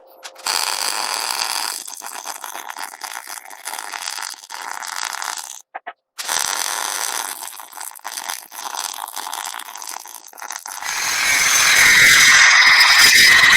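MIG welder crackling steadily as it lays weld on the damaged trunnion wheel, running solid ER70S6 wire with C25 gas, with a short break about halfway. For the last couple of seconds a louder, steadier noise takes over.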